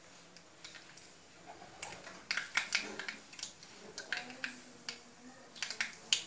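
Mustard seeds popping and spluttering in hot coconut oil in a pan, a stage of tempering that shows the oil is hot enough. The sharp, irregular pops start about two seconds in and come thick and fast.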